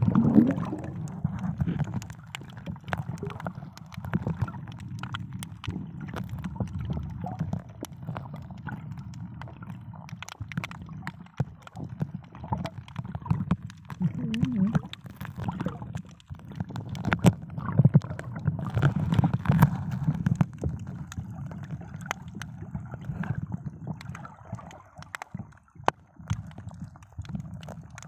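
Muffled underwater water noise picked up by a submerged camera: low sloshing and gurgling that swells and fades, with scattered small clicks.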